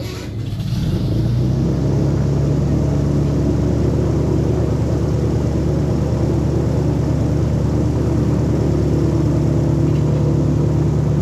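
Airboat engine and propeller revving up about a second in, rising in pitch, then running steadily at high throttle.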